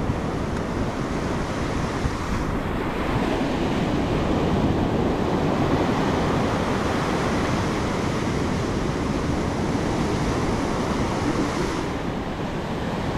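Ocean surf breaking in the shore break and washing up over the sand, a steady rushing wash that swells a little louder about three seconds in and eases near the end.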